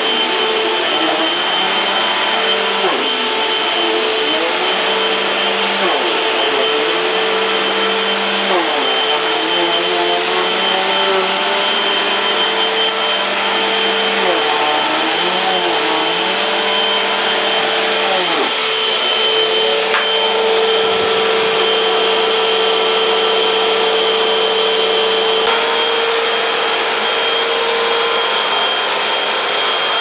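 Dirt Devil ReAction D2 bagless upright vacuum cleaner running steadily on carpet, its motor note shifting slightly in pitch now and then as it works.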